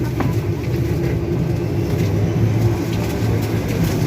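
Steady low hum inside an airliner cabin during boarding, with a few faint light clicks and knocks.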